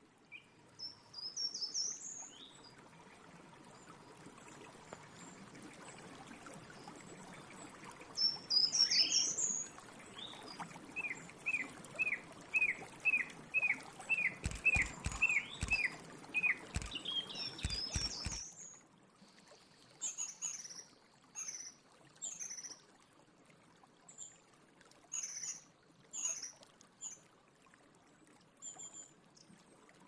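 Song thrush singing: a series of separate phrases of clear high notes, one of them a single note repeated rapidly about a dozen times. The phrases come over a steady background hiss that drops away about two-thirds through, with a few faint clicks in the middle.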